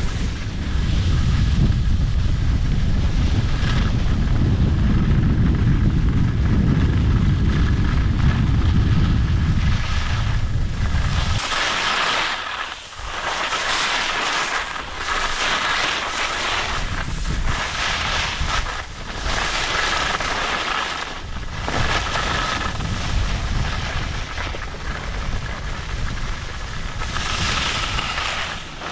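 Wind buffeting the camera microphone as a heavy low rumble while skiing downhill, cutting off abruptly about eleven seconds in. After that, skis scraping and hissing over groomed snow in surges that come and go with each turn, every second or two.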